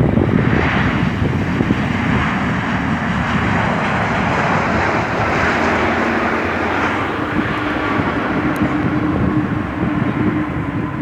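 Jet airliner's engines heard steadily as it passes the airport, with a low hum coming in about halfway through, over gusty wind buffeting the microphone.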